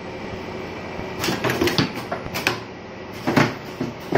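Pneumatic actuators of an automatic wire cutting machine stroking: several quick clusters of sharp clacks with short bursts of air, over a steady machine hum.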